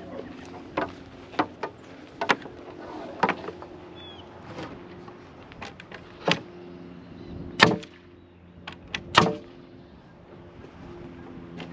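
Scattered sharp knocks and clicks of lumber and a corded power tool being handled, with two louder knocks in the second half. A steady low hum runs underneath and drops out twice.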